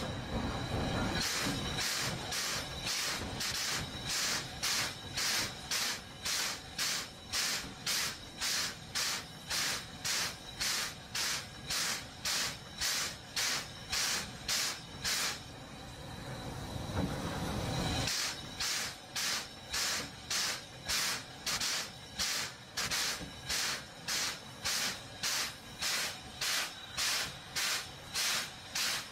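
Steam locomotive puffing in an even rhythm of about one and a half puffs a second, with a steady continuous hiss of steam for a few seconds in the middle before the puffing resumes.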